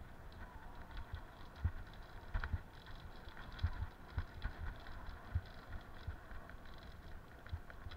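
Bicycle riding over a rough sandy dirt track: a low rumble of tyres with irregular thumps from bumps in the ruts and light rattling clicks.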